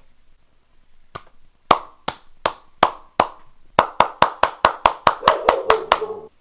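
Open-hand slaps on a sleeping person's bare skin: sharp, separate smacks a couple of times a second, then a quicker run of about five a second near the end.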